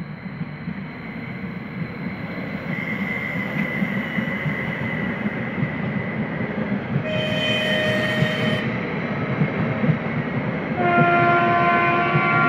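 Stadler FLIRT electric multiple unit EPm-001 rolling past, its wheel-and-rail rumble growing louder, with a thin steady whine for a few seconds. It sounds its horn twice: a short, higher blast about seven seconds in, then a longer, lower blast near the end.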